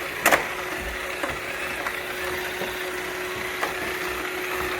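Roomba 694 robot vacuum running steadily, the even hum of its motors and brushes, with a sharp knock about a third of a second in and a few lighter knocks after.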